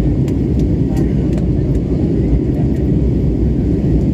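Steady low rumble of a moving vehicle heard from inside its cabin, even and unbroken, with a few faint clicks.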